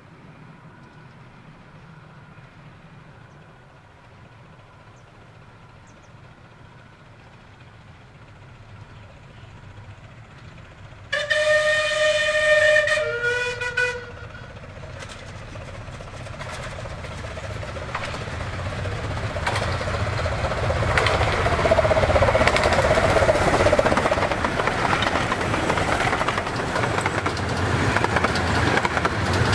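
A 15-inch-gauge miniature steam locomotive approaching. At first its rumble is faint. About eleven seconds in it sounds its whistle twice: a longer, higher note, then a short, lower one. After that the train's running noise and wheel clatter grow steadily louder as it comes close, loudest in the last third.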